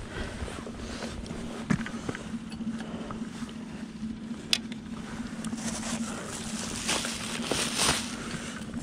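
Scattered knocks and rustling from gear being handled, over a steady low hum. There is a sharp knock about two seconds in and another near the middle, and a longer rustle near the end.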